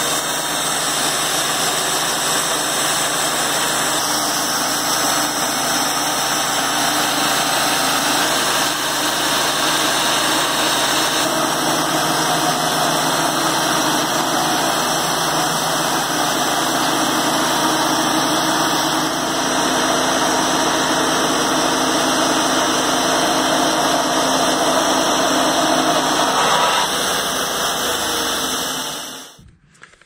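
Kohler engine of a Wood-Mizer LT28 portable bandsaw sawmill running steadily and loudly, fading out near the end.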